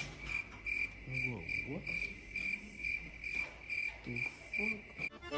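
A high, even chirp repeating about twice a second, with faint voices underneath about a second in and again near the end.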